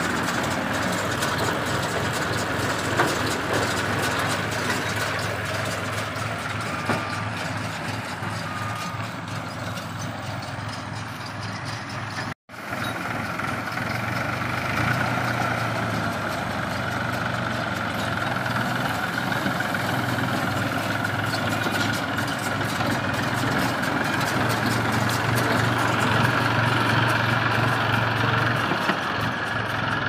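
New Holland diesel tractor running steadily while driving a round baler at work, with the clatter of the baler's roller chains and sprockets over the engine hum. The sound drops out for an instant about twelve seconds in.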